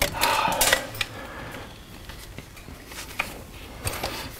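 Scattered clicks and knocks of a cordless drill fitted with a hole saw being handled and pulled back out of a freshly drilled hole in a wooden floor joist, most of them in the first second. The drill is not running.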